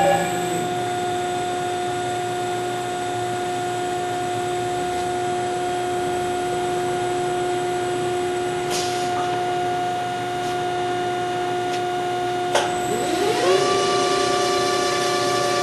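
CNC section bending machine running: a steady mechanical whine throughout, a couple of sharp clicks, then about 13 seconds in a drive motor whines up in pitch and holds steady as the rolls turn.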